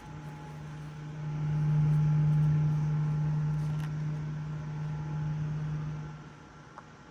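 A small motor-driven device giving a steady low buzzing hum, growing louder about a second in and dying away about six seconds in. It is the abnormal noise the device makes once it is turned from sideways to point downward.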